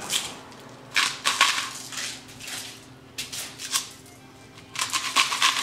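Seasoning being shaken and rubbed onto a pork shoulder on aluminium foil, in several short bursts of rattling and crinkling about a second apart.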